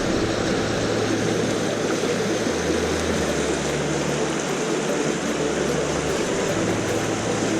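Steady rush of water pouring from a sewer discharge outfall.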